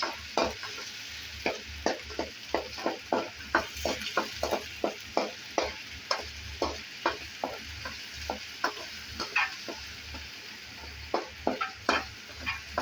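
Ginger-garlic paste frying in oil in a kadai, sizzling steadily, while a ladle stirs it and scrapes and knocks against the pan about twice a second. The paste is being cooked until its raw smell is gone.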